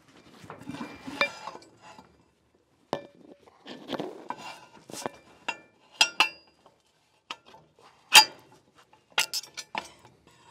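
Steel truck bed crane boom and its pins clanking and clinking as they are handled and fitted together at the mast head: a string of sharp separate metal knocks, the loudest about eight seconds in.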